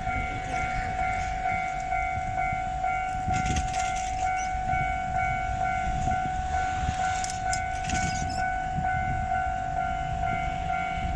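Japanese railroad crossing alarm ringing its steady, rapidly repeating electronic "kan-kan" ding, with a train rumbling past on the tracks.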